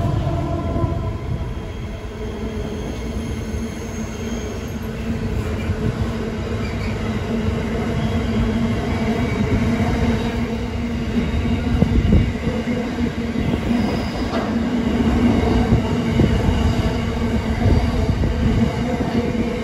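Intermodal freight train rolling past, its wagons making a steady rumble on the rails with faint wheel squeal now and then.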